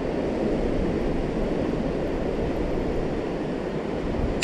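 Steady rushing roar of fast-flowing spillway water, with wind across the microphone.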